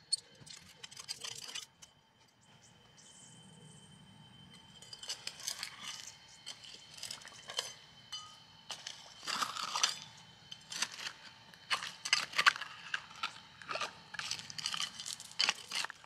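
Metal garden trowel digging into gravel and soil, with irregular scrapes, crunches and clicks of stones against the blade. The strokes come thick and fast from about five seconds in.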